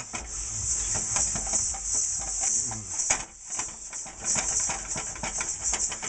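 Salt being scrubbed around the inside of a hot wok with a wad of paper towel: quick, irregular gritty scraping strokes, over a steady high hiss. The salt is scouring old carbon off the wok's surface.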